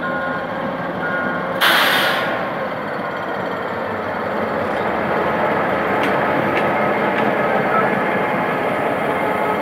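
General Motors G22W diesel-electric locomotive running as it rolls slowly past at a level crossing. About one and a half seconds in, a short, very loud hiss of air sounds. A level-crossing warning signal beeps at the start.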